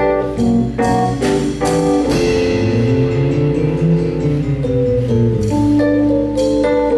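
A jazz trio playing: a keyboard with an organ sound plays chords over a drum kit, holding one long chord through the middle.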